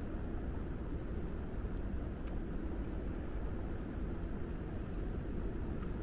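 Steady low rumbling background noise, with one faint click a little over two seconds in.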